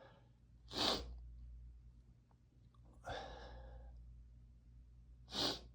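A man breathing quietly after a sneeze from a dust allergy: a short sharp breath about a second in, a longer sighing breath around the middle, and another short breath near the end.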